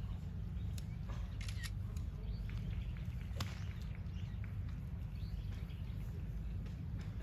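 A few short, sharp clicks over a steady low rumble of outdoor background noise, with a quick cluster of clicks about one and a half seconds in and a stronger single click about three and a half seconds in.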